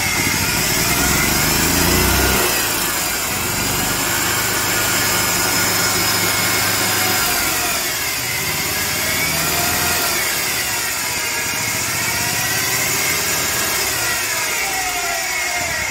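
EZGO golf cart's gas engine running and revved on the throttle pedal, its pitch rising and falling several times as it spins the rebuilt CVT drive and driven clutches and belt. It runs smoothly, a sign the clutch no longer sticks.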